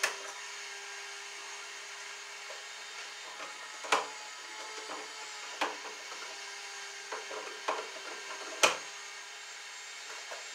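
Hand screwdriver fastening a device into an electrical box: scattered sharp clicks and knocks of the driver and device against the box, about six of them, the loudest near the end, over a steady low hiss.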